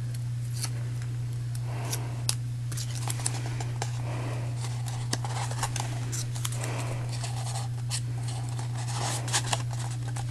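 Cardstock balloon cutouts and small foam adhesive squares being handled and pressed onto a paper cone: scattered soft clicks, taps and paper rustles over a steady low hum.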